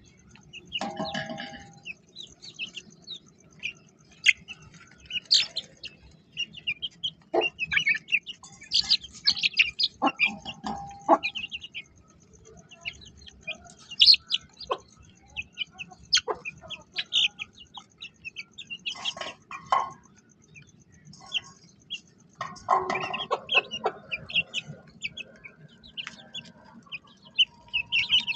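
Hens clucking among the high, short chirps of small aviary birds, in scattered bouts with brief pauses.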